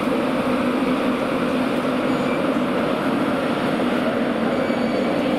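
Class 91 electric locomotive running alongside the platform, a steady mechanical hum and drone with no clicks or knocks.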